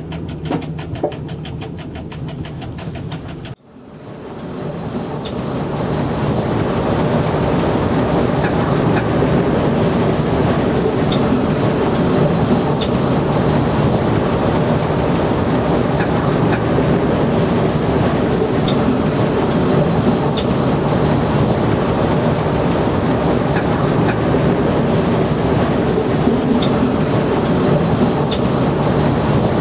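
Cab noise of an SNCF Z 5300 electric multiple unit running along the line: a steady rumble of wheels on rail with scattered faint clicks. A few seconds in the sound cuts out abruptly, then fades back up louder and stays steady.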